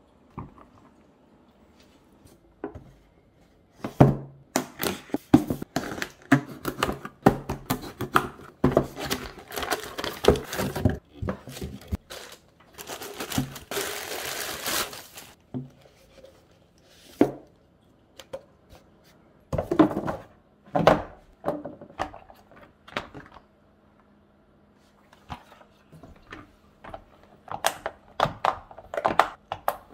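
Hard white plastic ice-mold parts handled: repeated clicks and knocks as pieces are turned over, set down and fitted together. About halfway through, a plastic bag crinkles for a couple of seconds.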